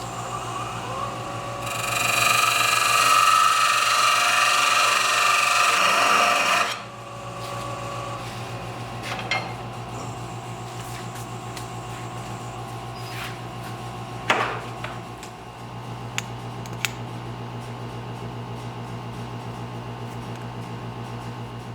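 Wood lathe motor running with a steady hum. For about five seconds early on, a tool works the spinning birch blank with a loud scraping, then the lathe runs on with a few sharp taps.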